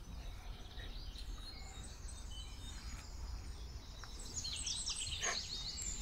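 Small songbirds singing, with scattered high chirps and then a quick, busy run of chirps and downward-sweeping notes about four and a half seconds in, over a steady low rumble.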